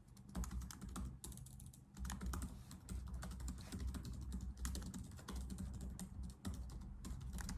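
Typing on a computer keyboard: a quick, irregular patter of key clicks.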